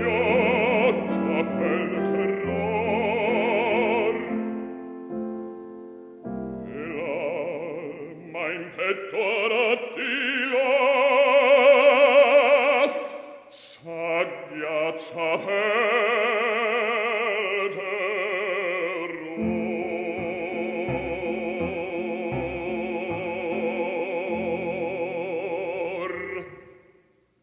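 Operatic bass-baritone singing an aria with a wide vibrato, accompanied by piano. The loudest phrase comes about halfway through, and near the end a long held note fades away.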